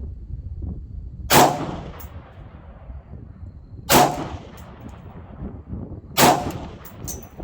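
Three single shots from a 3D-printed Orca AR-15 rifle firing 5.56 rounds, about two and a half seconds apart, each trailing off in a brief echo.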